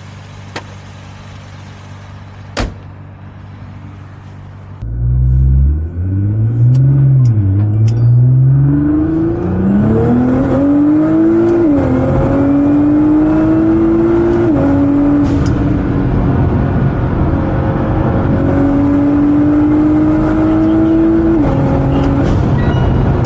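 Nissan GT-R's twin-turbo engine, fitted with K&N cold air intakes, blow-off valves and a Stage 1+ tune, idling and then, about five seconds in, accelerating hard. Its pitch climbs and drops back with three upshifts before holding a steady, slowly rising pitch until it eases off near the end.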